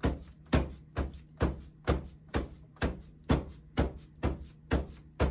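A mould filled with wet concrete being knocked down on a tabletop in a steady rhythm, about two thuds a second, to bring air bubbles up out of the mix. The knocking stops near the end.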